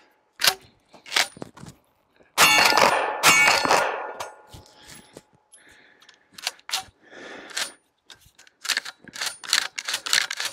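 Dickinson Commando 12-gauge pump-action shotgun's slide being worked by hand: two loud, ringing metallic clacks about a second apart a little over two seconds in, then a run of quick clicks near the end as the action is cycled back and forth. The action is being checked after repeated light primer strikes, and it seems smooth.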